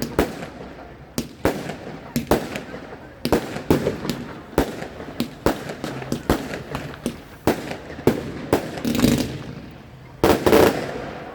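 Fireworks going off in an irregular volley of sharp bangs, several a second, with two longer, louder bursts near the end.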